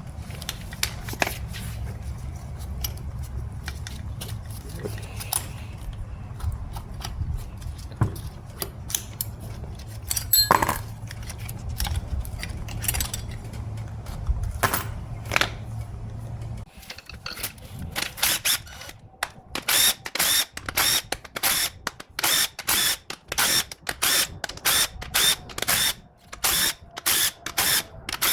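Scattered metallic clicks of parts being handled over a steady low hum. From about two-thirds of the way in, a tool works on the transmission's valve body bolts in short repeated bursts, about two a second.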